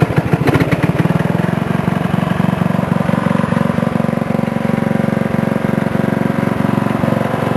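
Riding lawn mower's small engine, its idle set low at the carburetor. It fires in heavy, uneven beats for about the first second, then settles into a steady, slow idle.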